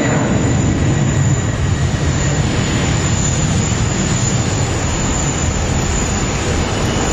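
Steady aircraft noise: an even rumble with a thin high whine above it, unbroken and without separate events.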